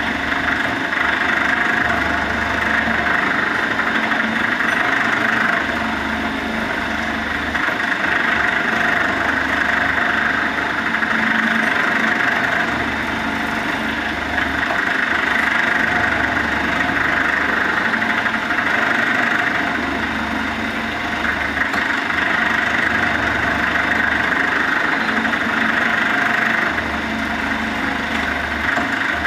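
Water filter cap making machine running: its motor and roller-chain drive turn steadily with a mechanical hum, and a low drone swells and fades in a regular cycle every few seconds.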